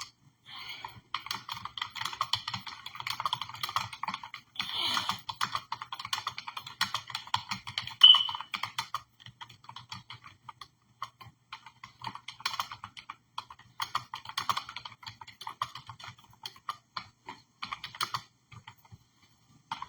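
Rapid, irregular light clicks and taps, several a second, over a faint steady low hum. One short high beep sounds about eight seconds in.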